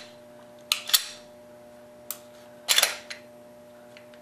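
Sharp metallic clicks and clacks from a Smith & Wesson M&P pistol's slide and trigger mechanism being function-checked after an Apex aluminum AEK trigger install. They come in three short clusters: about a second in, just after two seconds and near three seconds. The check shows too little trigger overtravel: the sear does not rotate far enough to release the striker.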